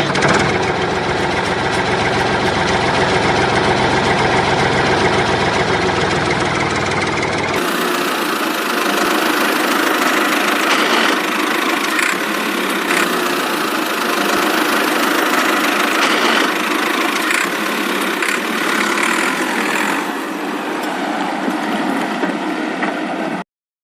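Small electric motor and gearing of a home-made model drilling rig running steadily with a whirring, buzzing sound, and a few brief clicks. About 8 s in, the deep hum drops out suddenly.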